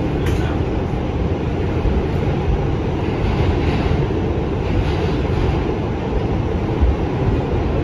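New York City subway car on the A line running along the track, heard from inside the car: a steady, loud rumble.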